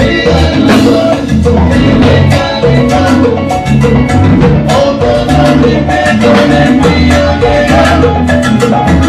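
Salsa music: an instrumental passage of a salsa orchestra with bass and percussion keeping a steady beat.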